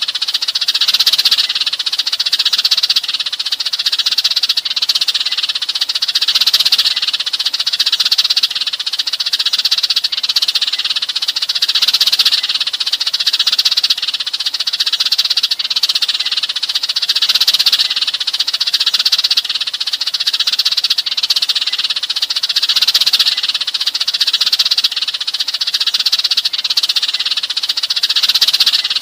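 A flock of sparrows, Eurasian tree sparrows, chirping and chattering nonstop in a dense, high-pitched chorus that swells and eases every second or so. It is a flock call used as a lure to draw sparrows in.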